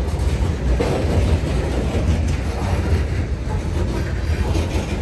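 Norfolk Southern freight train rolling past, a steady rumble of cars on the rails.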